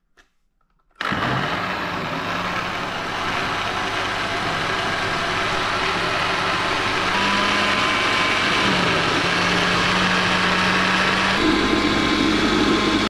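Electric jug blender switched on about a second in, running steadily as it purees cooked rice and cowpea stew into baby food. Its motor hum wavers a little in pitch, and it stops abruptly at the end.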